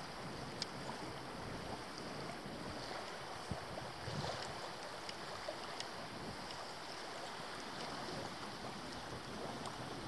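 Steady rainforest ambience, an even hiss, with a few faint clicks and knocks scattered through it.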